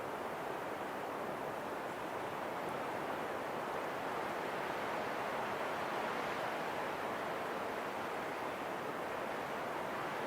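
Steady rushing wind, swelling a little around the middle.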